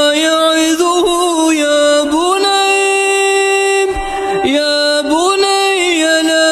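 A male reciter chanting the Quran in melodic tajweed style, with long drawn-out notes that glide up and down between steady pitches and a short break about two-thirds of the way through.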